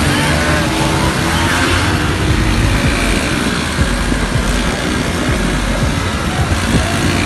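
Steady, loud traffic noise heard from a moving vehicle: car and motorcycle engines running, with a heavy low rumble of road and wind noise.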